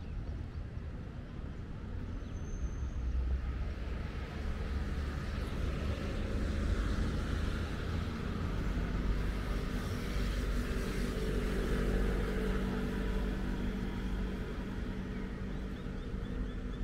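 A motor vehicle passing: engine and road noise swell over several seconds, hold for a while with a steady engine hum, then slowly fade.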